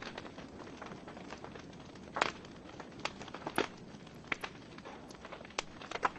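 Logs burning in a fireplace, crackling: irregular pops and snaps over a soft steady hiss, the sharpest about two seconds in and again a second and a half later.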